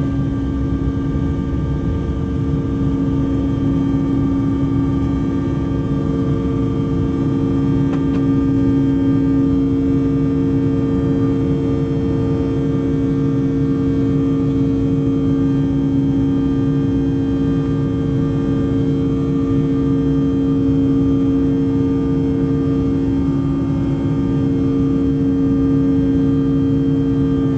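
Cabin noise inside a Bombardier CRJ-900 climbing out after takeoff: its rear-mounted General Electric CF34 turbofans run at high power, making a loud, steady drone with two steady hums over a low rumble and rush of air.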